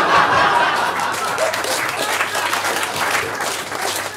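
Audience laughing and applauding after a punchline. Laughter swells at the start and gives way to steady clapping, which thins out near the end.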